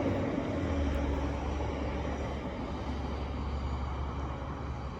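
Steady low rumble of a distant engine, slowly fading.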